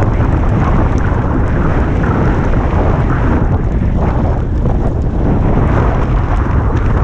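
Loud, steady wind buffeting on the microphone of a mountain bike speeding downhill, mixed with the rolling hiss of knobby Kenda K-Rad tyres on wet asphalt.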